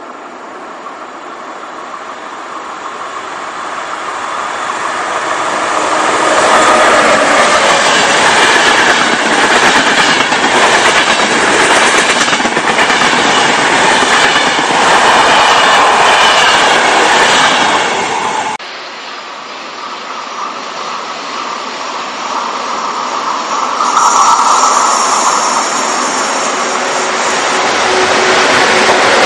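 Electric-hauled passenger train approaching and passing close by, wheels clattering over the rail joints, growing louder over the first few seconds. An abrupt cut about two-thirds of the way through, then another train passing, building up again.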